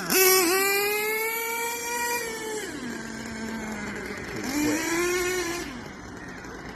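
Hobao Hyper MT Sport nitro RC truck's small glow-fuel engine revving high, then easing off to a low steady idle about two and a half seconds in. It revs up again briefly around four and a half seconds, then drops back and fades.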